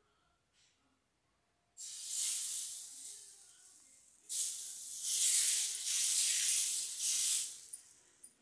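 Ragi dosa batter sizzling on a hot oiled tawa as it is poured and then spread in circles with a ladle. The hiss starts about two seconds in, eases briefly, then swells again as the batter is spread, and fades near the end.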